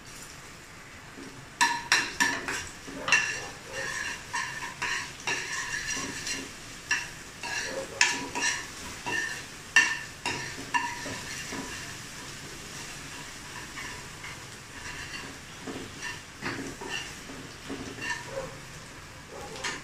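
Crushed garlic and whole red chillies sizzling in hot oil in a stainless steel pan, with a steel spoon stirring and clinking against the pan. The clinks come thick and loud for the first ten seconds or so, then thin out while the sizzle carries on.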